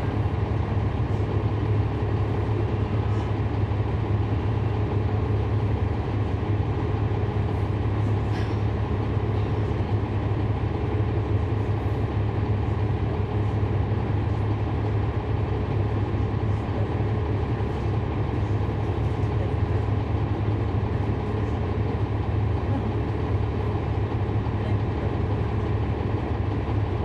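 Cummins ISL9 inline-six diesel engine of a NABI 40-SFW transit bus, heard from inside the passenger cabin, running with a steady low drone and no change in pitch.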